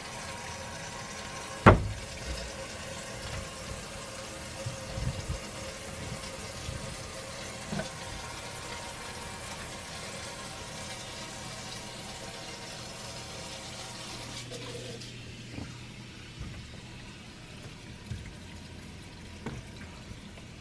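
Kitchen faucet running water into the sink to test the newly reconnected disposal drain for leaks. A loud knock comes about two seconds in, with a few softer thumps after it. The running water stops about three-quarters of the way through.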